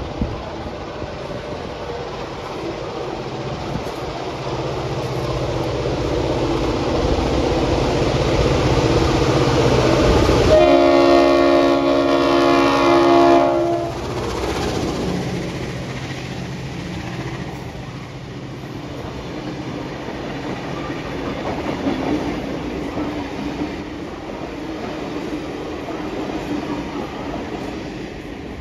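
A pair of NSW 42 class diesel-electric locomotives, 42103 and 42107, with EMD two-stroke V16 engines, approaching and passing at speed. The lead locomotive sounds a multi-note chord horn for about three seconds, a little past ten seconds in. Then the train rolls by with wheel clatter that slowly fades away.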